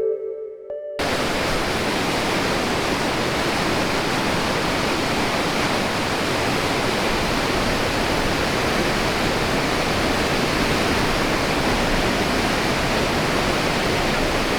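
Steady, loud roar of rushing water from the Iguazu Falls, starting abruptly about a second in.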